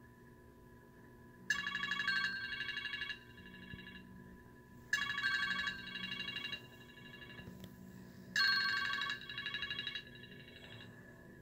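Electronic telephone ringtone: three trilling rings about three and a half seconds apart, each a fast-warbling chord of high tones.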